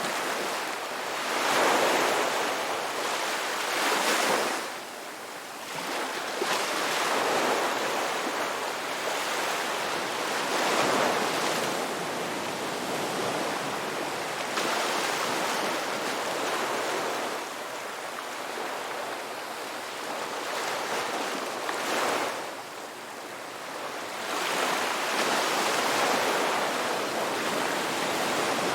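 Ocean waves breaking and washing in, a continuous hiss of surf that swells and eases every few seconds.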